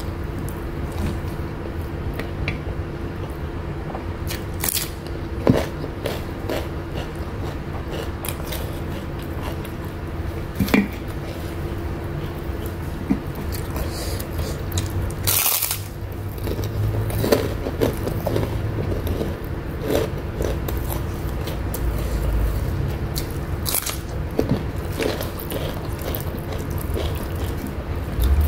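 A person eating by hand, chewing and crunching mouthfuls of rice with raw vegetables, with scattered sharp clicks. A steady faint hum runs underneath.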